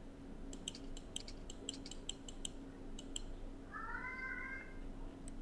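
Faint, irregular clicking for the first three seconds or so. Then, about four seconds in, a short, faint, high-pitched call lasting under a second.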